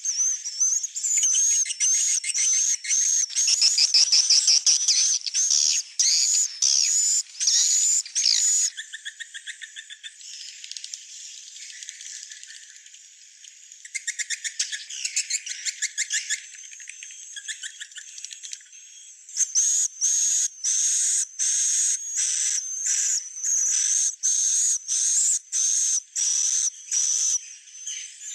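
Swiftlet calls used as a lure sound: rapid, repeated high chirps and twittering. They are quieter in the middle, with trains of rapid clicks, and grow dense again about two-thirds of the way in.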